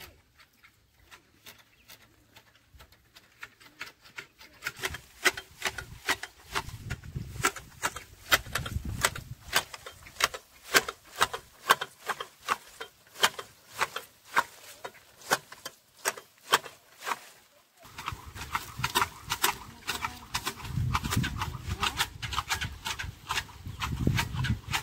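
Hand tea-plucking shears with a catch bag snipping through tea shoots: a quick, regular clicking of about three cuts a second, with a short break about two-thirds in.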